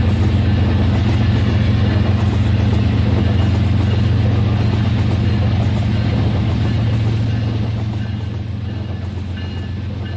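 Rail King battery-powered toy train running on its plastic track: a steady low motor hum and rumble, which gets quieter about eight seconds in.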